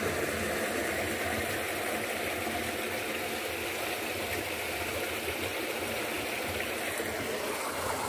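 Water running steadily through a ditch, a continuous rushing flow.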